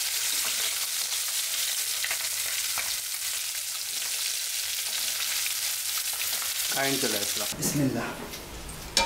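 Whole fish sizzling steadily as they fry in hot oil in a pan, being cooked until crisp, with the spatula ticking against the pan now and then. The sizzling drops away about seven and a half seconds in, followed by a few clattering knocks.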